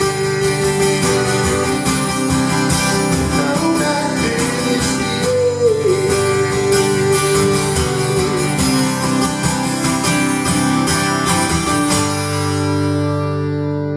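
Acoustic guitar strumming the closing bars of a country song, with a held note that bends in pitch midway. About twelve seconds in the strumming stops and the final chord rings out, fading.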